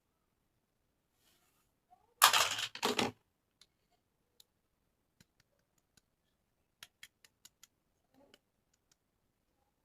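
Packaging rustling loudly for about a second, in two quick bursts, then scattered small clicks and taps from handling toy pieces, including a quick run of about five clicks.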